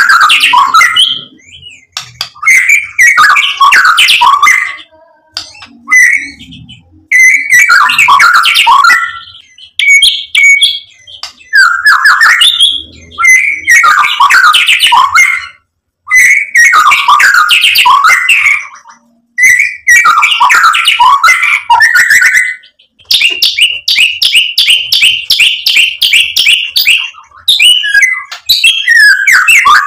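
Male white-rumped shama singing: loud, varied phrases of quick whistled and chattering notes, one every couple of seconds with short pauses between. About two-thirds of the way through comes a longer phrase of rapidly repeated notes.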